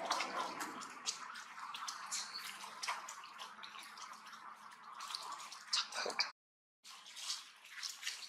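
Close crackling and clicking from a plastic bag of rambutans being rummaged and fruit being handled and torn. The sound cuts out completely for about half a second a little past the middle.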